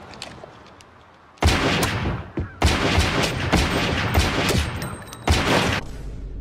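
A handgun fired repeatedly at close range: a run of loud shots starting suddenly about a second and a half in, in two quick clusters over about three seconds, with a final shot or two near the end.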